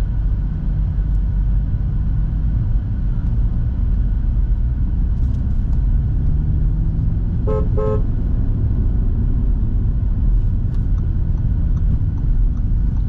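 Car engine and road noise heard from inside the cabin, running steadily, with two short horn toots close together about seven and a half seconds in.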